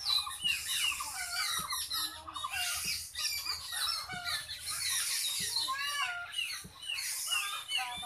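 A chorus of many birds calling at once: short, overlapping whistled and chirping notes that slide up and down in pitch, over a steady high hiss.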